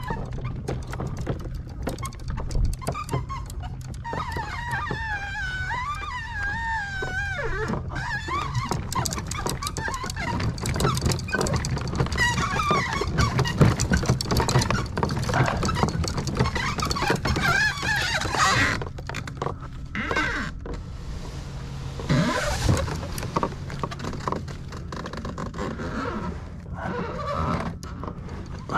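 Loaded kayak being moved over grass and paving stones to the water, its mounted rods, crate and gear rattling and knocking irregularly against the hull, over a low steady rumble.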